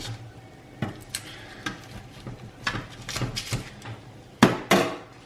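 Metal utensils clinking and knocking against dishes as food is served onto a plate: scattered light clicks, with two louder clatters close together near the end.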